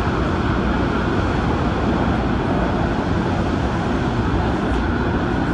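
Adtranz-CAF electric multiple unit train running at steady speed, a continuous low rumble of wheels on rail and running gear.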